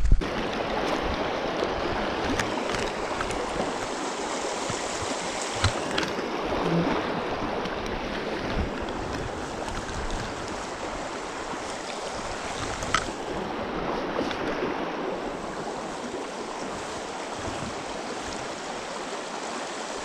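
Shallow mountain stream running over stones, a steady close rush of water. A few faint ticks come through it now and then.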